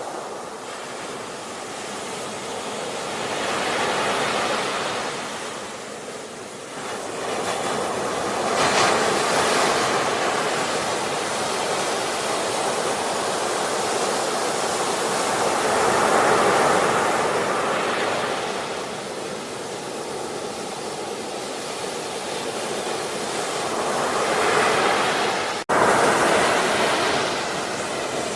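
Sea waves breaking and washing in, the surf swelling and ebbing every few seconds. A split-second dropout near the end.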